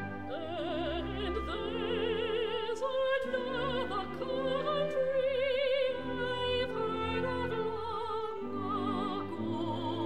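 Background music: an operatic voice singing with wide vibrato over an orchestra.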